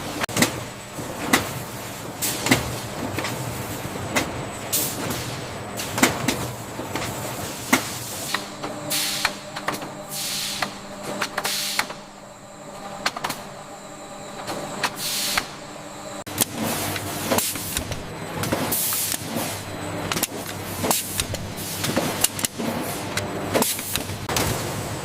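Factory machinery running. Irregular clanks and clicks sound over a steady hum, with a few short hisses in the middle.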